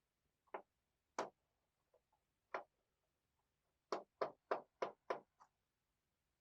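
Small sharp clicks and taps from a screwdriver and loose screws while the bottom-case screws of an Asus X540LA laptop are removed: a few single clicks, then a quick run of five about four seconds in.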